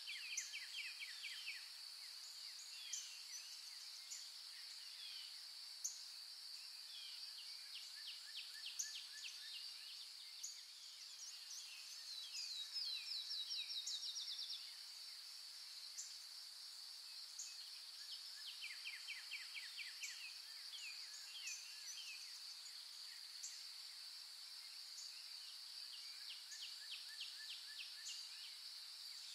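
Outdoor nature ambience: a steady, high insect drone, with birds repeatedly giving short, rapid trills. A louder, longer trill comes about twelve seconds in and lasts a couple of seconds.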